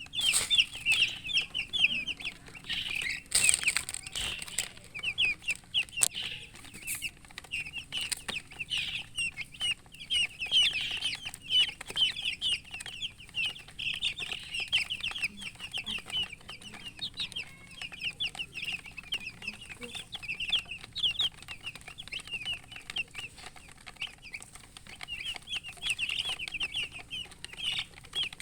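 A group of newly hatched chicks peeping loudly and continuously, many rapid high chirps that each slide down in pitch, with a few sharp clicks about three to six seconds in.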